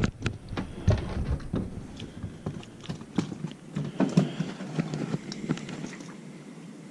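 Scattered, irregular light clicks and knocks of hands handling fishing tackle in a small boat while a soft-plastic crappie jig is rethreaded on its hook. The knocks thin out near the end.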